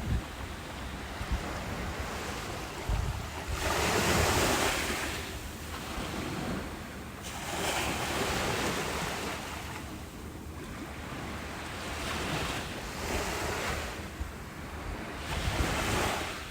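Ocean waves breaking and washing up a beach, the rush swelling and ebbing every few seconds, loudest about four seconds in.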